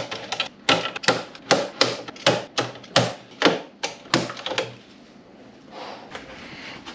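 Scissors snipping through rigid white plastic tubing: a quick run of sharp snips, about two or three a second, that stops about five seconds in.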